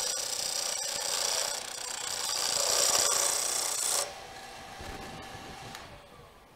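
A lathe turning tool scraping into a spinning wooden duck-call blank, a steady, loud scraping hiss that cuts off abruptly about four seconds in as the tool comes off the wood, leaving fainter noise that fades.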